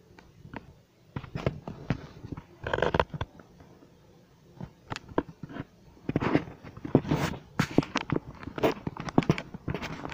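Close, irregular rustling and scratchy clicks of fur and fabric moving near the microphone. There is a short scratchy burst about three seconds in, and the clicking grows denser through the second half.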